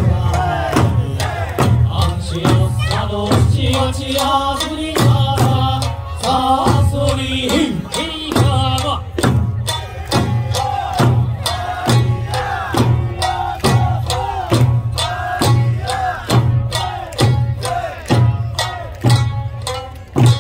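Okinawan eisa music: a sung folk song with sanshin accompaniment played over loudspeakers, with the dancers' large barrel drums (ōdaiko) and small paranku hand drums struck in a steady beat, a heavy drum stroke about once a second.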